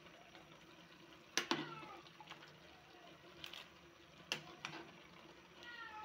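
A cooking utensil clinks and knocks against a metal pot a few times as egg noodles and vegetables are tossed together, with short high squeaks falling in pitch about a second and a half in and near the end.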